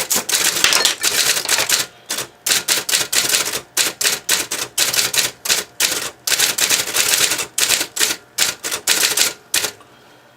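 Sears SR2000 electric typewriter typing a test sentence: its type bars strike in quick runs of keystrokes, several a second, with a couple of brief pauses, and the typing stops shortly before the end.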